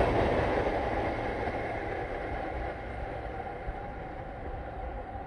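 A train going past and moving away, its running sound dying away steadily.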